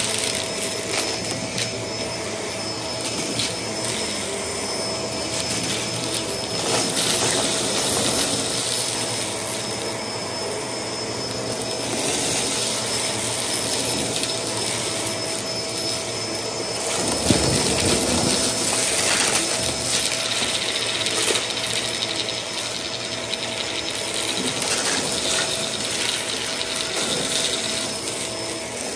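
Bagless upright vacuum cleaner running with a steady whine, while sequins and confetti clatter and tick as they are sucked up. A short, deeper rush of airflow comes about two-thirds of the way through.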